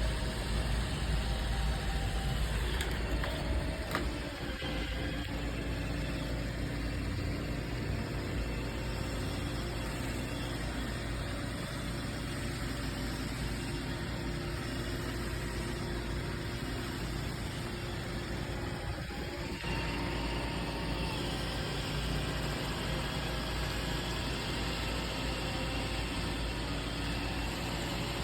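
Roomba robot vacuum running: a steady motor hum with its brushes and fan going, the sound shifting slightly about four seconds in and again near twenty seconds.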